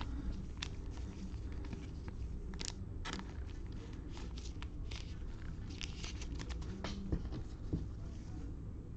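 Trading cards and their cellophane pack wrappers being handled: a string of short crinkles, rustles and clicks over a steady low hum.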